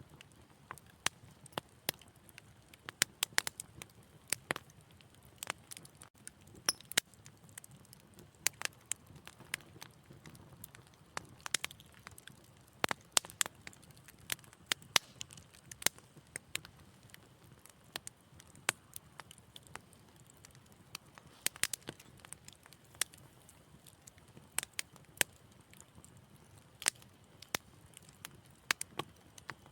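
Wood fire crackling in a fireplace: irregular sharp pops and snaps, several a second, over a soft low hiss of burning.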